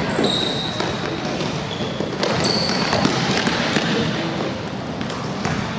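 Basketball game on a hardwood gym floor: a ball bouncing and sneakers squeaking in short high chirps, over a steady hubbub in the hall.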